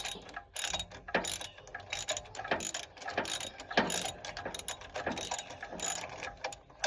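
Socket ratchet wrench clicking in short, irregular strokes as a spark plug is backed out.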